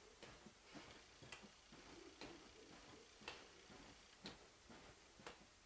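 Near silence: room tone with faint, sharp ticks about once a second.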